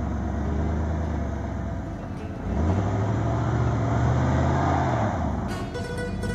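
Truck engine running, then revving up about two and a half seconds in and holding a higher pitch for a couple of seconds before dropping back, with the truck stuck in deep snow. Plucked-guitar music comes in near the end.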